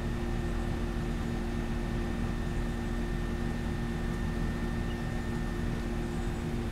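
A steady machine hum with a low rumble beneath it and a few held tones.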